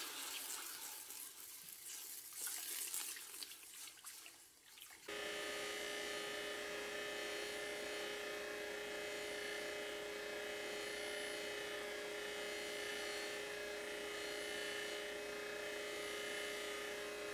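A rushing, hissing noise for the first five seconds, then an abrupt change to an electric power-tool motor running at a steady speed with a constant whine.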